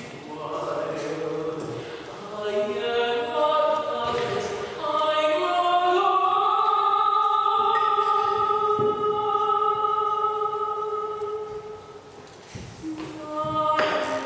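A choir of voices singing slow chords, with one chord held for several seconds in the middle. The voices briefly drop away near the end, then come back in.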